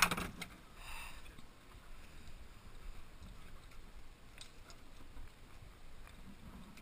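A sharp knock at the very start, then faint clicks and rustling as fishing rods and a plastic box are handled, over a low steady hiss of wind and water around the boat.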